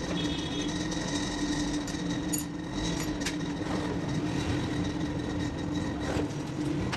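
Fiorenzato Venezia two-group espresso machine running with a steady motor hum.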